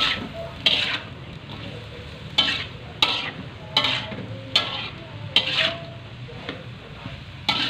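Shrimp and vegetable stir-fry in a wok: a spatula scrapes and tosses the food against the pan roughly once a second, each stroke with a short metallic ring, over a steady sizzle. The stirring works the just-added salt and sugar through the dish.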